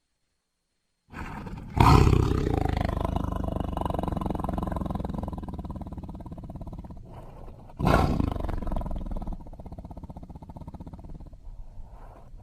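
Tiger roaring: after about a second of silence, two long, rough, rapidly pulsing roars, the first beginning a second or two in and the second about eight seconds in, each fading away.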